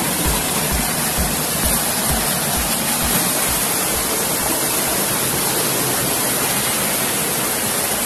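Steady rushing of a rocky forest stream spilling over a small waterfall. Under it, a low beat of background music, about two thumps a second, fades out about halfway through.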